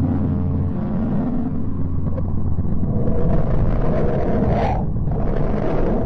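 Space sound presented as the sound of Mercury: radio-wave signals converted into audio, heard as a deep, steady rumble. From about three seconds in, a brighter hiss rises over it and briefly cuts out near the end.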